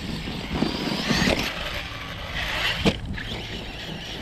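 Electric RC car driving on dirt: the brushless motor's whine rises and falls over tyre and gravel noise, with a single sharp knock about three seconds in.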